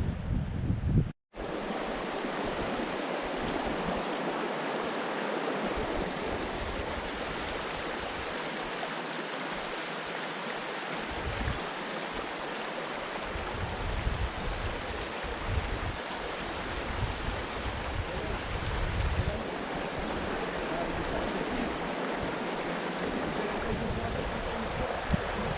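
River water rushing steadily over rocks, with wind gusting on the microphone. A brief cut-out comes about a second in.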